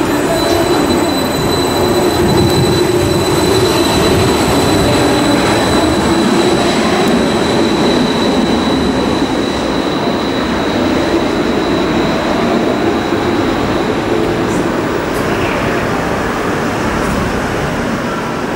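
Athens Metro Line 1 electric train pulling out and running away along the platform: a loud steady rumble of wheels on rail with a thin high whine that fades about two-thirds of the way in, the whole sound easing off as the train leaves.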